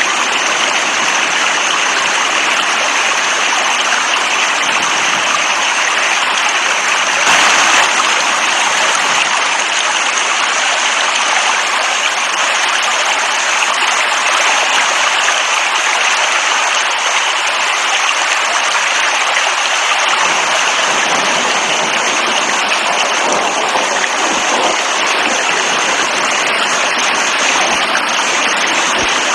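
Steady heavy rain, an even, continuous hiss, with a brief louder swell about seven seconds in.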